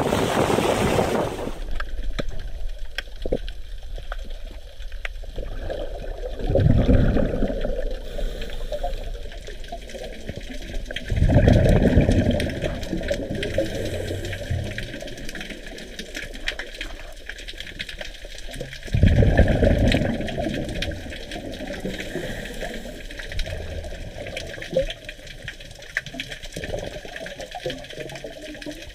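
Muffled underwater sound recorded by a diver's camera, with a scuba diver's exhaled regulator bubbles rushing and gurgling three times, several seconds apart, over a steady fine crackle of clicks.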